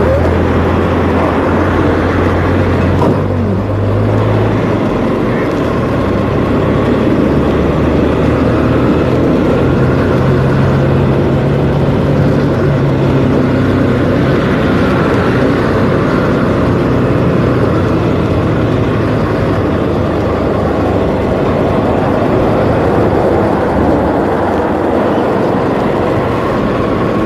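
Motorcycle engine running under way, its note stepping up and down a few times as the rider changes gear, with a steady rush of wind over the handlebar-mounted microphone.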